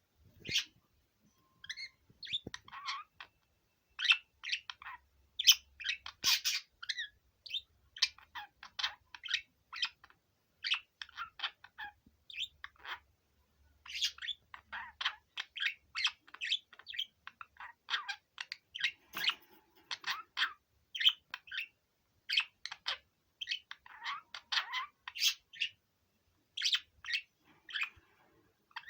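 Male budgerigar warbling: a fast, chattering run of chirps, clicks and squeaky notes with brief pauses.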